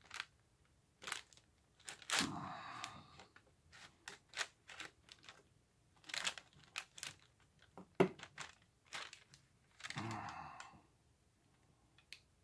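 Small metal parts of a flint-wheel sparker clicking and scraping under the fingers as it is reassembled, with two longer stretches of rustling about two seconds and ten seconds in.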